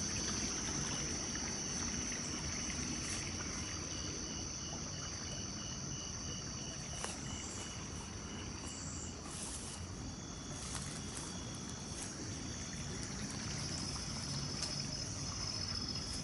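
Night insects such as crickets trilling steadily in a high continuous note, with a second, lower insect call pulsing evenly for several seconds in the middle, over the even rush of flowing water.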